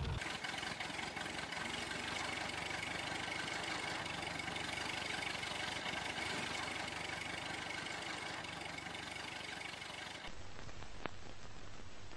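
Motor vehicle engines running steadily under a hiss. About ten seconds in, the sound cuts abruptly to a deeper engine rumble, with one brief click shortly after.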